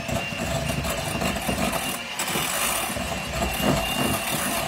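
Electric hand mixer running steadily, its beaters creaming softened butter and cream cheese in a glass bowl.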